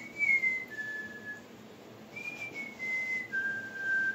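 A person whistling two short phrases, each a clear note held briefly and then stepping down in pitch, the second phrase ending lower than the first.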